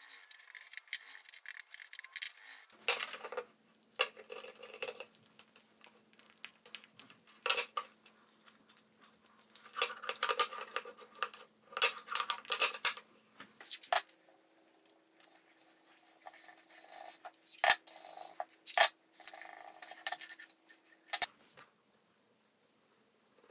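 Thin sapele wood pieces being handled, slid and set down on a wooden workbench: scattered light knocks, taps and rubbing, over a faint steady hum.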